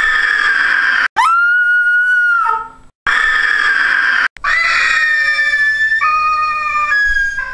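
A series of high-pitched screams, each held at a steady pitch and cut off abruptly, about four in a row with brief silences between them. The last scream is longer and its pitch shifts in steps.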